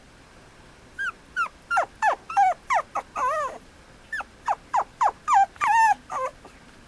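Mame shiba puppy whining and yelping in a quick string of about a dozen short high cries, many of them falling in pitch.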